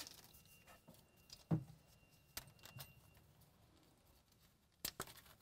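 Faint clicks and small rattles of hands working a plastic wiring-harness connector and zip tie on a utility vehicle's bed actuator, with a sharper double click near the end.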